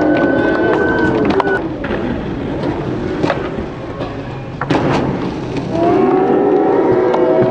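Skateboard on concrete: rolling noise with sharp clacks of the board hitting the ground, the loudest a little under five seconds in. Shouting voices at the start, and again from near the end.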